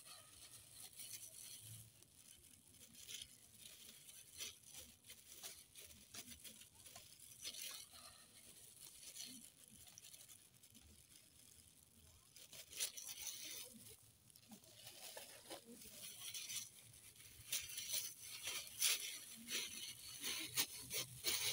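Plastic bag and disposable plastic gloves crinkling and rustling in irregular crackles while marinated pork pieces are threaded onto metal skewers, growing busier near the end.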